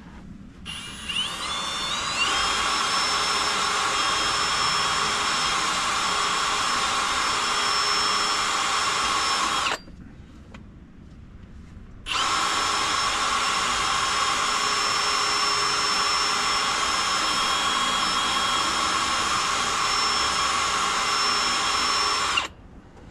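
Cordless power tool motor running under the trigger: it spins up with a rising whine, runs steadily for about nine seconds, stops, then runs steadily again for about ten seconds.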